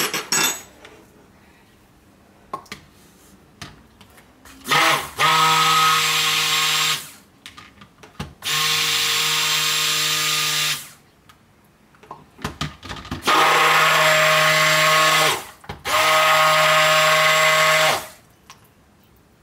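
Electric stick blender run in four bursts of about two seconds each in cold process soap batter, a steady motor hum with a churning wash, blending the oils and lye toward trace. A few light clicks and knocks of equipment come between the bursts.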